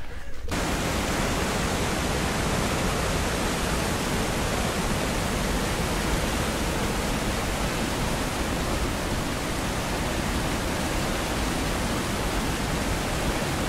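Steady rush of river water pouring over the low, wide Nõmmeveski waterfall: an even hiss with no let-up. It cuts in abruptly about half a second in.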